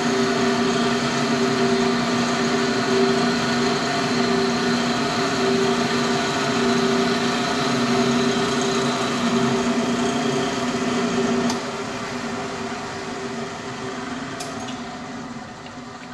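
Vertical milling machine running, its end mill cutting a channel in a plastic puck: a steady machine drone with a high whine. About two-thirds of the way through the cutting tone stops with a click, and the sound then dies away.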